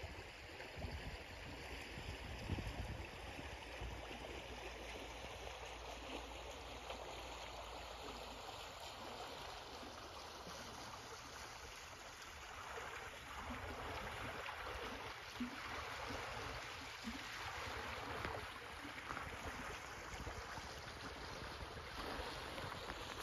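Shallow lagoon outlet stream running over a pebble beach, a steady rush of water that grows louder about halfway through. A few low bumps sound in the first few seconds.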